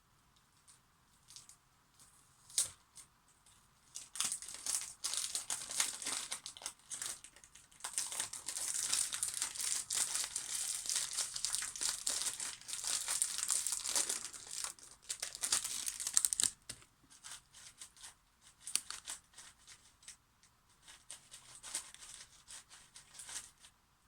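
Plastic packaging crinkling and tearing for about twelve seconds as a new 5x5 speed cube is unwrapped, followed by sparse light clicks as the cube is handled and turned.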